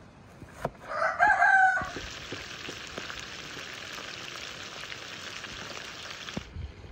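A single knife chop, then a rooster crows briefly and loudly about a second in. After that, pieces of chicken sizzle steadily in hot butter in a wide pan, until the sound cuts off suddenly near the end.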